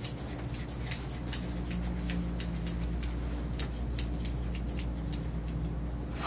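Grooming shears snipping through a dog's coat in quick irregular cuts, a few snips a second, over a low steady hum.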